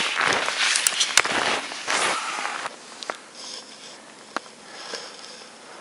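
Crunching and rustling of a person moving through deep snow, loud for the first two and a half seconds, then faint, with a few sharp clicks.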